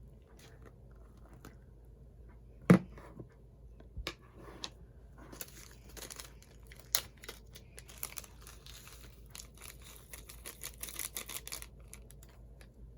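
Snowfish slime being handled: a sharp click about three seconds in, then a dense run of small crackles and pops from squishing and stretching the slime.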